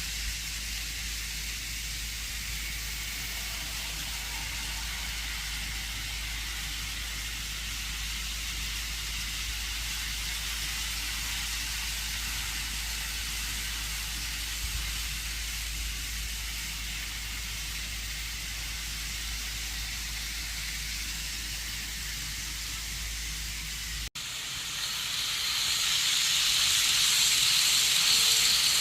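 Model trains running on the layout, a steady whirring hiss of motors and wheels on track. It breaks off suddenly about 24 seconds in and comes back louder and brighter near the end.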